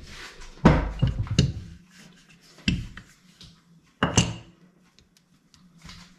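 Handling knocks and bumps at a kitchen counter: three sharp clusters of knocks about a second and a half apart, the first and longest about a second in, then quiet rustling.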